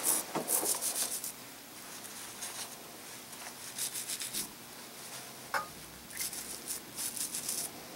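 Wet, soapy toothbrush scrubbing a brass hose fitting on a torch handpiece in a few short bouts of brushing, soaping the joint to check it for gas leaks.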